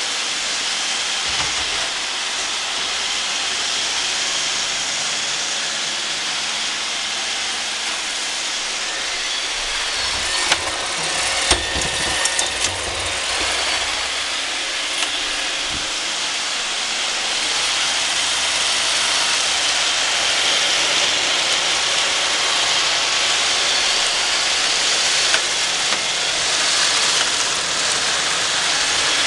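Roomba robot vacuum running, a steady high whirring hiss from its motor and brushes, with a few short knocks about ten to thirteen seconds in.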